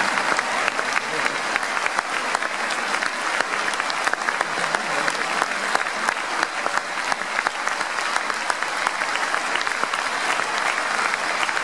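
A large audience and the performers on stage applauding together: dense, steady clapping from many hands at once.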